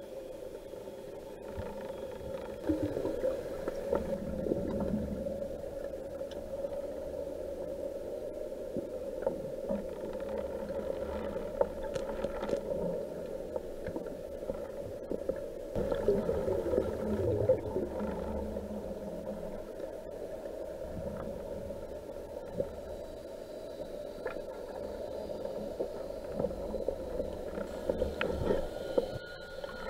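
Muffled underwater sound picked up by a submerged camera: a steady low rush of water moving past as the diver swims, with scattered faint clicks and knocks.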